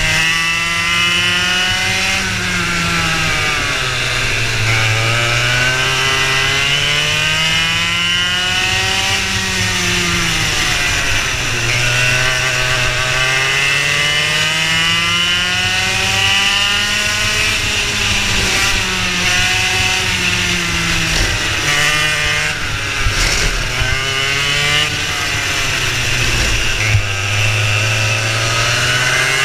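Racing kart engine heard from on board at full race pace. Its pitch climbs as the kart accelerates and drops as it slows for corners, several times over.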